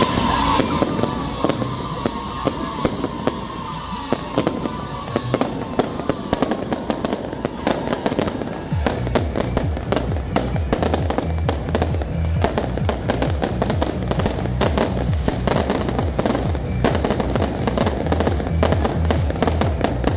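Aerial fireworks and firecrackers going off in a dense, continuous crackle of bangs, with a falling whistle in the first few seconds. From about nine seconds in, music with a heavy low beat plays under the explosions.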